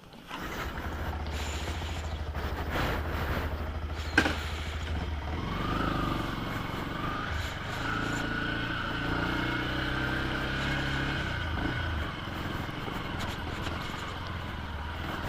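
Motorcycle engine running, steady at first, then its note changes as it pulls away about five seconds in. A single sharp click comes about four seconds in.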